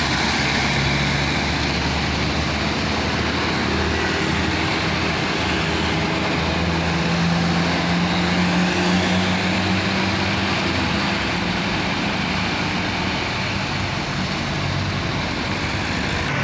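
Diesel engine of a medium-size bus pulling up a steep climb as it passes, with road traffic noise; the engine note is loudest around the middle.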